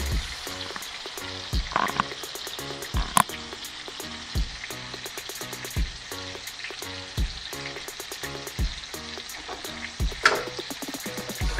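Two whole black sea bass frying in a nonstick skillet: a steady sizzle with a few sharp spattering pops. A low thump repeats underneath about every second and a half.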